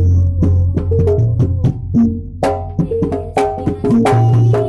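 Javanese gamelan playing: quick hand strokes on a large kendang drum over ringing bronze kettle-gong and metallophone notes. A deep gong stroke rings through the first two seconds.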